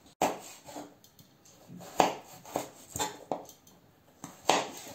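Kitchen knife slicing a carrot into strips on a plastic cutting board: irregularly spaced knocks of the blade meeting the board, about seven in all.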